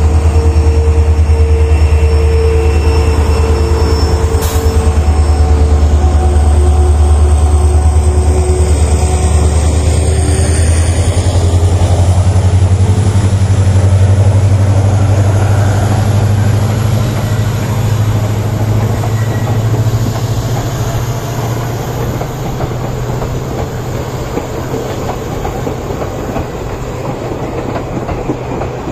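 WDP4 diesel locomotive's 16-cylinder two-stroke EMD engine pulling hard as the train accelerates out of the station, a deep steady drone with a high whine that climbs slowly in pitch. The coaches follow, their wheels clattering over the rail joints as the sound fades gradually.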